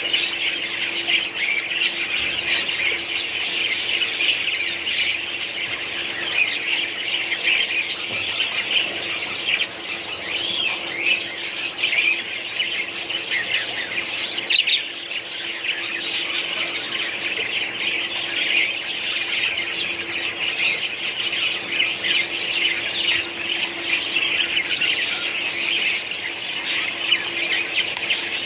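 A colony of budgerigars chattering and chirping continuously, many birds calling at once in a dense warble. A steady low hum runs underneath.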